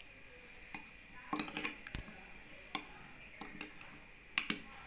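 Steel spoon clinking and scraping against a glass bowl while stirring spice powder into chopped fresh turmeric pickle: a few scattered light clinks, the sharpest pair near the end.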